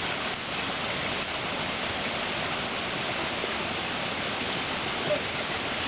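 Steady, even rush of running water, like water flowing through flooded rice terraces. One brief higher note stands out about five seconds in.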